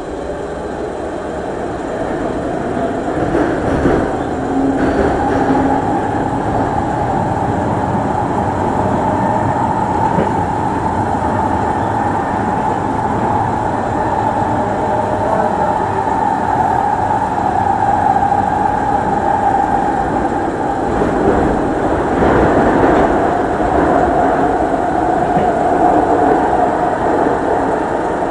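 Singapore MRT train heard from inside the carriage as it runs between stations: a whine rising in pitch at the start as it picks up speed, then a steady rumble and whine of the train running at speed.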